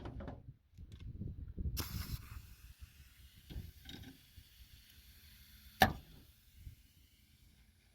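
A valve spring compressor being set up on a cylinder head: clattering handling noise, then a steady hiss that starts suddenly about two seconds in and keeps going, with one sharp knock near six seconds.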